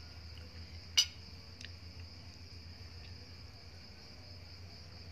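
Steady high-pitched trilling of night insects, crickets, over a low hum, with one sharp click about a second in and a fainter tick just after.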